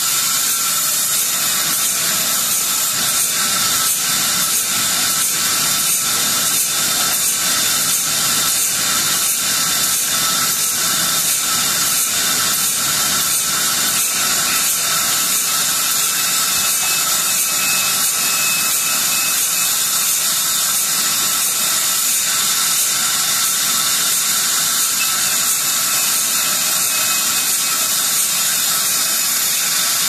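Large vertical band saw running steadily, its blade ripping a log lengthwise into slabs: a loud, even hiss with a faint regular pulse.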